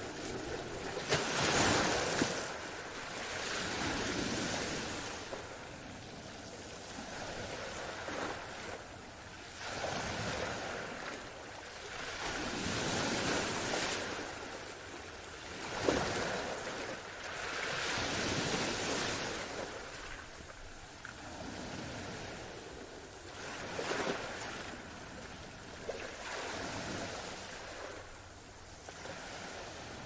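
Ocean surf: waves breaking and washing in, the noise swelling and fading every few seconds, with sharper crashes about a second and a half in and about halfway through.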